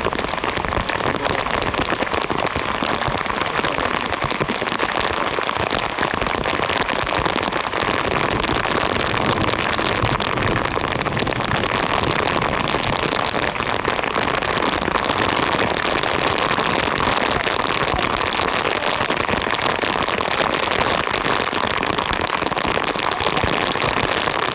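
Heavy downpour: rain falling steadily, a dense, even patter of drops hitting surfaces.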